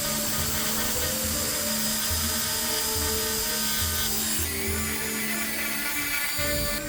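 Background music with a pulsing beat over a high-pitched power carving tool cutting wood, which stops about four and a half seconds in; the music carries on after it.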